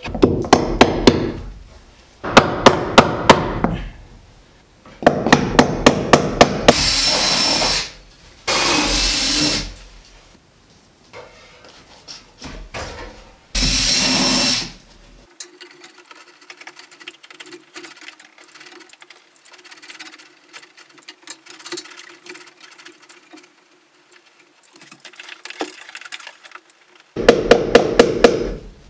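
A hammer tapping in quick runs of blows, driving staples to fix electrical cable along the rafters, with three short runs of a power drill of about a second each in between.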